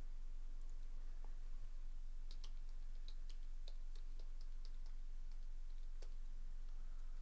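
Light clicking of typing on a computer keyboard, a quick run of keystrokes starting about two seconds in and lasting a few seconds, with a few stray clicks around it, over a steady low electrical hum.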